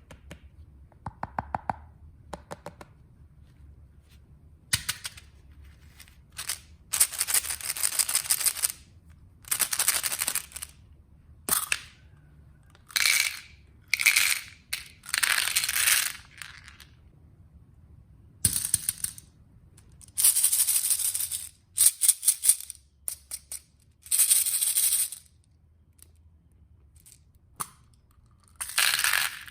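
Small hard candies rattling as they are poured and mixed onto a plate. The sound comes in about a dozen separate bursts of a second or two each, with quiet gaps between them.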